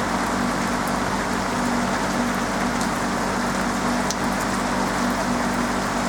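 Steady rain falling on a roof, an even wash of drops with an occasional sharper single drop tick. A steady low hum runs underneath.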